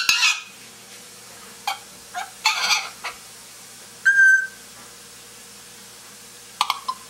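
African grey parrot making a string of short squawks and clicks, with one brief whistled note about four seconds in and a quick cluster of sharp calls near the end: the bird's habitual annoying noises.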